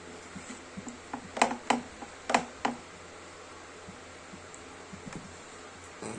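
A person eating: chewing with short, sharp, wet mouth smacks, four loud ones in quick succession about a second and a half in and a few fainter ones later.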